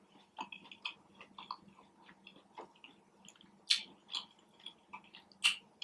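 Close-up chewing and wet mouth sounds of someone eating, a run of small clicks and smacks with two louder smacks near the middle and the end.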